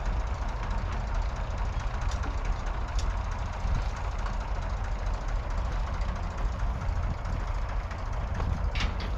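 Ford 4610 II tractor's 3.3-litre three-cylinder diesel engine running steadily with a low rumble, with a few sharp metallic clanks near the end.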